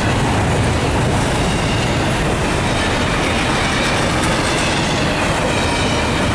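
Double-stack intermodal well cars of a freight train rolling past: a steady, loud rumble of steel wheels on rail.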